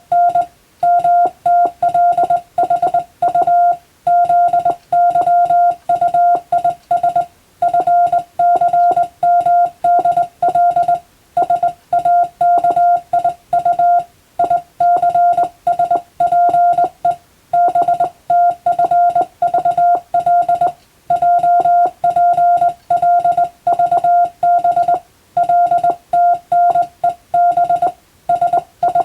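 Morse code (CW) receiving-practice signal: one steady beep keyed on and off in quick dots and dashes, with short pauses between letter groups, sending international Morse text from telegram practice material.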